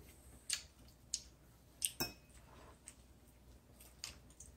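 Faint, scattered clicks and rustles of food and serving utensils being handled at a table, about five in all, the strongest about two seconds in.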